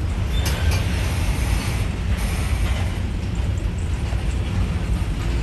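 Covered hopper cars of a freight train rolling past close by: a steady low rumble of steel wheels on rail with metallic rattling from the cars, and sharper clanks about half a second and two seconds in.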